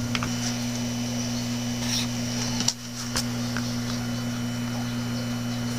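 Steady electrical hum with hiss, broken by a few clicks. One sharp click just under three seconds in briefly cuts the hum.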